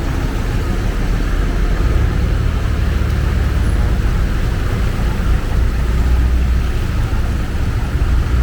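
Continuous low rumble of road traffic, swelling twice as vehicles pass, over the steady hiss of heavy rain.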